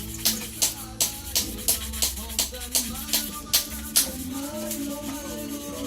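Music with a steady shaker beat and a melody; the beat drops out about four seconds in while the melody carries on.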